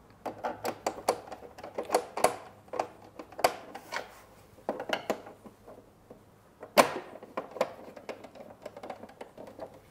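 A plastic consumer unit cover being fitted and screwed on with a screwdriver: a run of small irregular clicks and ticks, a short pause about halfway, then a louder click about two-thirds of the way through.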